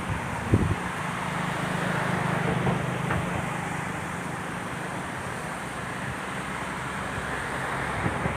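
Road traffic: a vehicle's engine hums as it goes by over steady traffic noise, with a short knock about half a second in.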